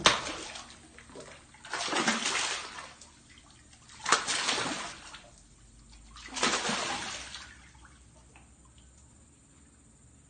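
A hooked bass thrashing and splashing at the water's surface in four bursts, the first sharp and the rest each lasting about a second, roughly two seconds apart over the first seven or eight seconds.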